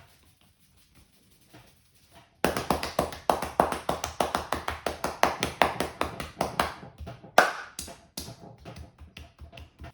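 Rapid percussive massage strokes, the barber's hands slapping and tapping on the customer, about six quick slaps a second. They start suddenly about two and a half seconds in, with one louder slap a little after the middle, and thin out near the end.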